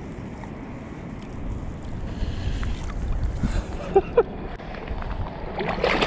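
Wind buffeting the microphone with a steady low rumble that swells partway through, over the sound of water. Near the end a louder burst of rustling and knocking comes in as the landed carp is handled.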